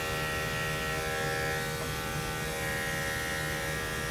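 Corded electric dog grooming clippers with a #10 blade running with a steady buzz as they shear tightly matted coat close to the skin.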